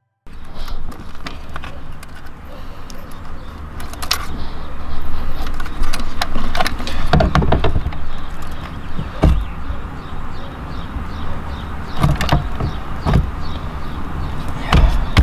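Irregular clicks and knocks of hands handling a steering wheel and its plastic wiring connectors while fitting it onto the column, over a steady low rumble.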